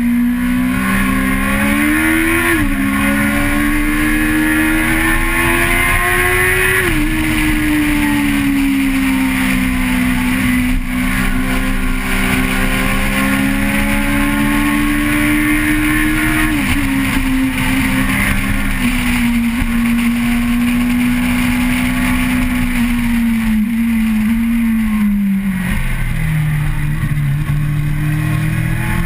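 Car engine heard from on board while driving, its pitch climbing under throttle and dropping suddenly at gear changes about 2.5, 7 and 17 seconds in. Near the end the pitch sinks low, then climbs again. A steady rush of wind and road noise runs beneath it.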